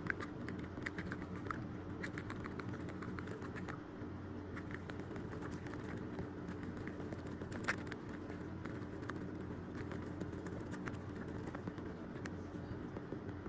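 Metal spoon stirring a shampoo and dish-soap slime mix in a clear plastic cup, making faint, irregular clicks and taps against the cup. One tap about three quarters of the way through is a little louder.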